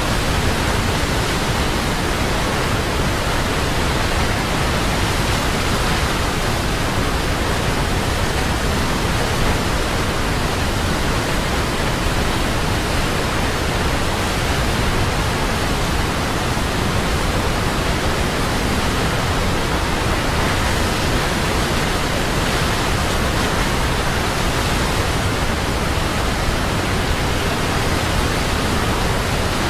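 Large waterfall: the steady, unbroken rush of falling water, loud and even throughout.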